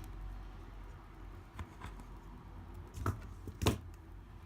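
Low steady rumble of road traffic coming through an open window, with a few short sharp clicks and scrapes of a spudger working old adhesive off an iPad mini 2's frame, the loudest near the end.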